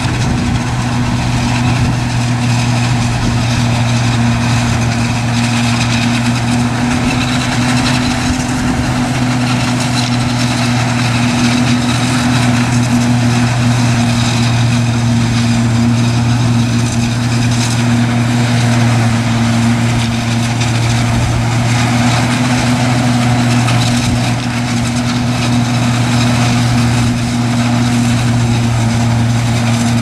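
Heavy diesel farm machinery running steadily: a self-propelled forage harvester working through maize, its engine holding a constant low hum under load.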